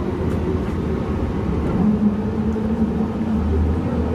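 Yongin EverLine light-metro train running between stations, heard from inside the car: a steady low rumble with a motor hum that steps up slightly in pitch about two seconds in.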